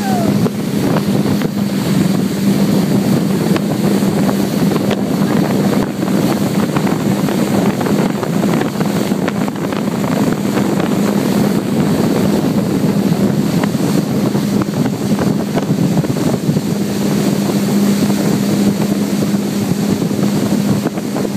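Towboat's engine running steadily at speed, a constant low drone, under the rush of the wake and wind buffeting the microphone.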